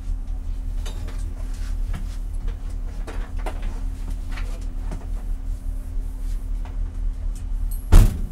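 BMW E90 330i's straight-six engine idling steadily at about 840 rpm with the car at rest, heard from inside the cabin. A single loud thump comes near the end.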